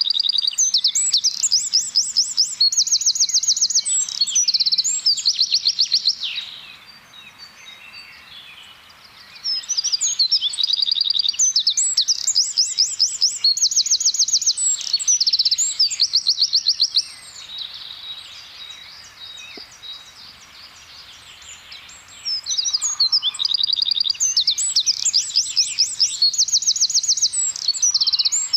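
Eurasian wren singing: three long, loud bouts of song, each about seven seconds, made of very fast, high-pitched trills and twitters, with pauses of a few seconds between them.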